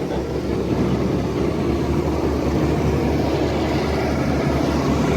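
A boat's engine running steadily aboard, a low even hum under a wash of noise.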